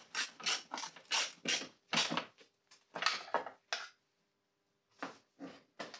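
Socket ratchet worked back and forth to tighten the headlight unit's mounting screws: a quick run of short rasping ratchet strokes, about three a second, that thins out, stops for about a second near the four-second mark, then comes back for a few more strokes near the end.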